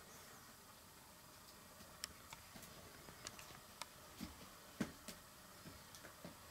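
Black Shiba Inu puppy chewing a plush toy: faint, irregular little clicks and soft rustles over a quiet room, the loudest about five seconds in.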